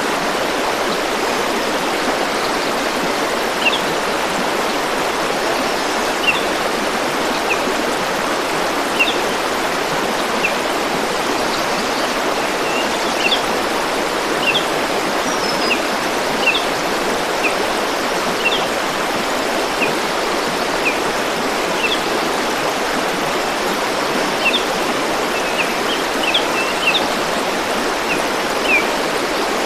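Stream water rushing and flowing steadily. Over it, a bird gives many short, high chirps, scattered irregularly from a few seconds in.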